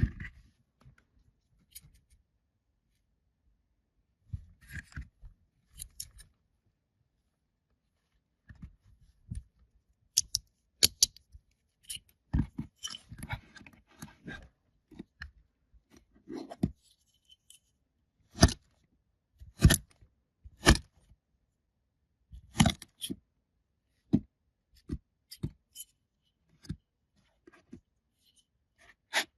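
Packaging being handled and opened: scattered sharp clicks and snaps, with a denser rustle about halfway through.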